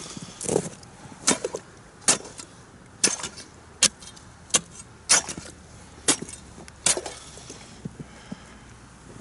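Steel ice chisel striking and chipping the ice at an ice-fishing hole: about nine sharp blows, a little under a second apart, with lighter taps near the end.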